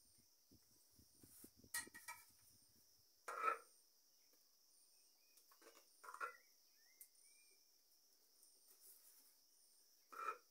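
Faint steady chirring of insects, broken four times by short louder sounds of a third of a second or so, the loudest about three and a half seconds in.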